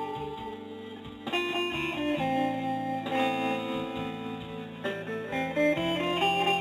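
Guitar music: plucked notes and chords of an instrumental piece, softer for the first second and fuller from then on.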